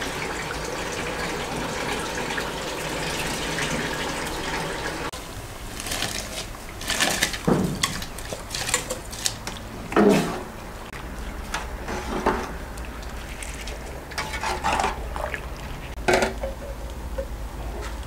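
Tap water running over rice in a glass bowl for about five seconds, then a metal spoon scraping and knocking as the soaked rice is tipped from the glass bowl into a large aluminium pot of water, with several sharp clinks of metal on glass and aluminium.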